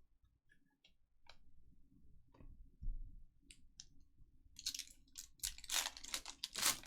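Trading cards and their packaging being handled on a table: light clicks and taps, then a denser run of rustling and crinkling from about four and a half seconds in.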